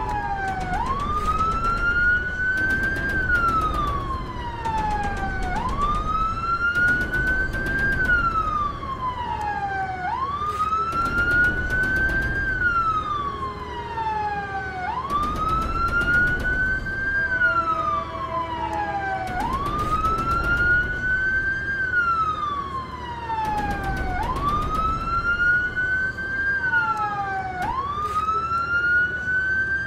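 Ambulance siren in a slow wail, rising and then falling in pitch, about every four and a half seconds.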